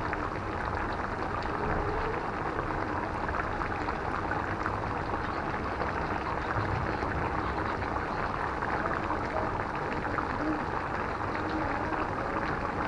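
Beef curry simmering in a karahi: steady bubbling and fine crackling as the water released from the meat cooks down in the masala during the kosha (dry-frying) stage.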